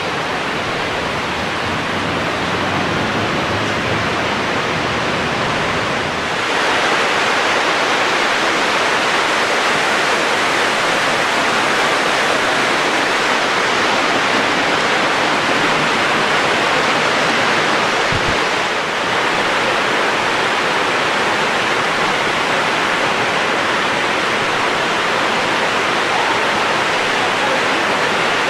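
Water pouring down the granite walls of a 9/11 Memorial reflecting pool: a steady, loud rush of falling water that grows louder about six seconds in.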